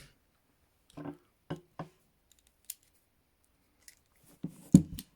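Small metallic clicks and scrapes of ASP Model 200 hinged handcuffs as a key is worked into the lock, with a louder sharp clack near the end.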